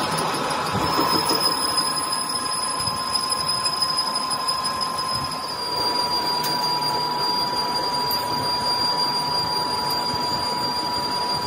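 Metal lathe running, turning a metal workpiece for a compressor gas jacket. It is a steady rough machine noise carrying a high whine, which grows stronger about halfway through.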